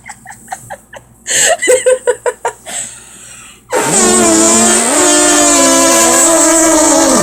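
A young woman's voice imitating an elephant's trumpet: after a few short choppy vocal bursts, one long, loud, horn-like held note that steps up in pitch partway through.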